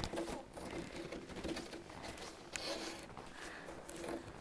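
Footsteps crunching in snow while climbing a slope on foot, a quick irregular patter of small crunches with a faint hum beneath.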